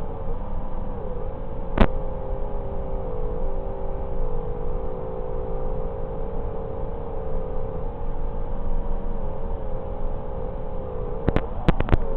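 FPV quadcopter's electric motors and propellers whining at high speed, a steady pitched drone that wavers slightly as the throttle changes. There is a sharp click about two seconds in and a quick cluster of clicks near the end.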